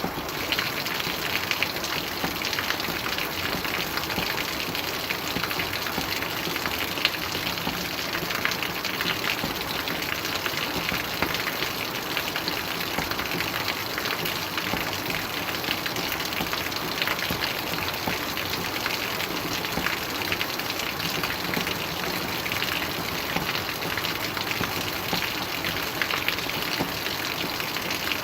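Steady rainfall, an even hiss of falling rain with many small drop ticks on a surface.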